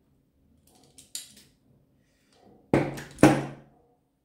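Light clicks about a second in, then two sharp knocks about half a second apart near the end: the parts of a partly dismantled jigsaw being handled and set down.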